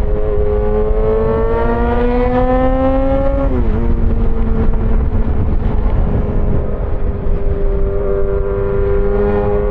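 Yamaha XJ6 S inline-four engine with an SC-Project aftermarket exhaust under way. The engine pitch climbs steadily for about three and a half seconds, drops sharply, then holds steady at a cruise. Wind noise rushes on the microphone throughout.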